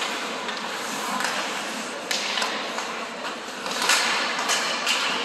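Ice hockey play: skates scraping on the ice under a steady noise, with several sharp knocks of sticks and puck, most of them in the second half.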